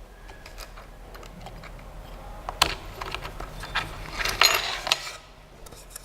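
Irregular light mechanical clicks and rattles over a faint hum, with one sharp click about two and a half seconds in and a dense run of clicks about four and a half seconds in.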